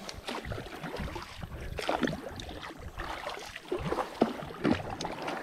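Kayak paddle strokes: a double-bladed paddle dipping and splashing in river water in quick, irregular strokes, with a few sharper knocks.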